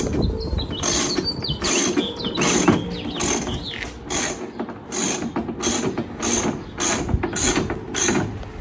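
Socket ratchet wrench clicking in repeated back-strokes, about one and a half a second, as bolts on a steel spare-tire carrier bracket are snugged up.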